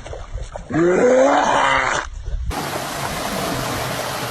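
A harsh, throaty groan lasting about a second, falling in pitch. After a sudden cut, a steady hiss follows.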